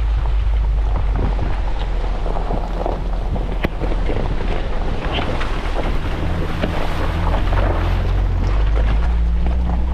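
Off-road vehicle creeping over a rough, rocky logging road: the engine runs with a low rumble while the tyres crunch over loose gravel and stones where a shallow creek washes across the road.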